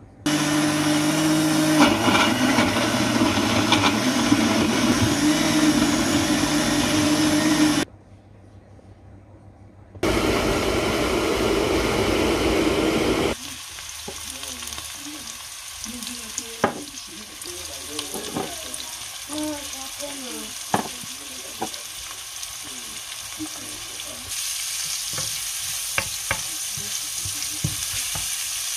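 Electric jug blender running steadily for about eight seconds, pureeing tomatoes and peppers, then after a short pause a loud burst of about three seconds. Then sliced onions sizzle in hot oil in a wok, with a spatula scraping and knocking as they are stirred; the sizzle grows louder near the end.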